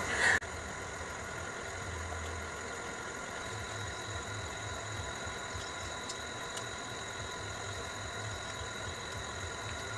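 A steady low machine hum, pulsing slightly, with faint steady high-pitched tones over it. A brief louder noise comes right at the start.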